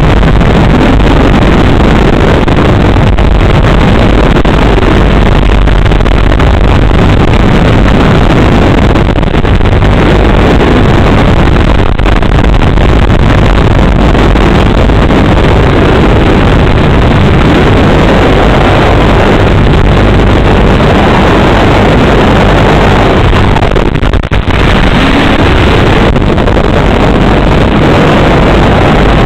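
FPV racing quadcopter's motors and propellers running loudly and steadily in flight, with one short dip in level late on.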